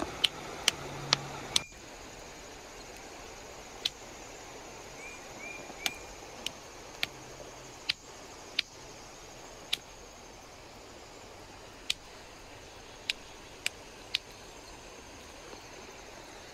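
Sharp clicks of quartzite being knapped: a quick run of about three strikes a second at first, then single strikes at irregular gaps of one to two seconds.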